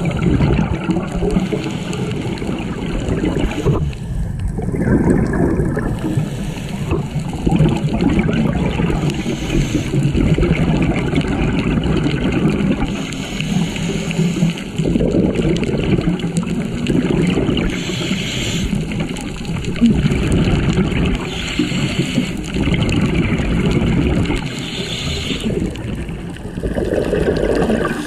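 Scuba regulator bubbles heard underwater: a gurgle of exhaled bubbles comes about every three to four seconds over a steady low rumble of water on the camera housing.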